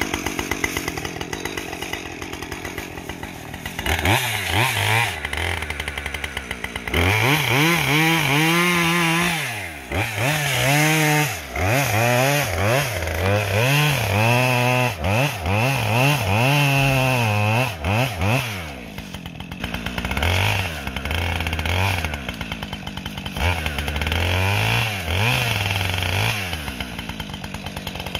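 Two-stroke chainsaw idling, then throttled up and cutting wood: the engine note sags and recovers again and again under load for about eleven seconds. It drops back to idle, then is revved in several more bursts.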